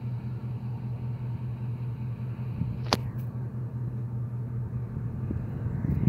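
A steady low engine hum, with a single sharp click about three seconds in and a brief swell near the end.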